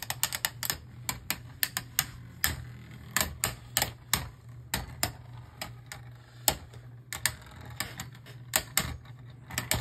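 Two Beyblade Burst spinning tops, Orpheus O2 and another top, clashing in a plastic stadium: irregular sharp clacks as they knock together, a few per second, over a low steady hum.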